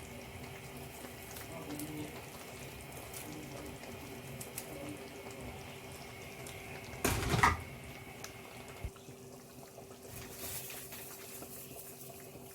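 Kitchen tap running under a steady hum, with one loud knock or clatter about seven seconds in; the high steady tone stops about two seconds after it.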